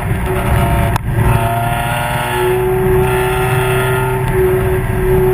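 Spec Miata race car's four-cylinder engine running hard on track, mixed with wind and road noise. There is a brief click and dip in level about a second in, then a steady high whine.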